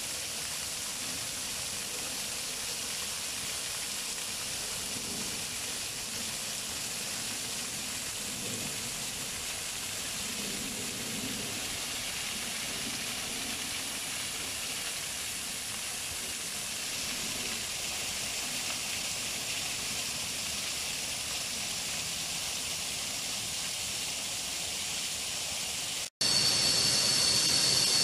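Waterfall pouring onto rocks: a steady rushing hiss of falling water. Near the end it cuts abruptly to louder water sound with a steady high-pitched whine over it.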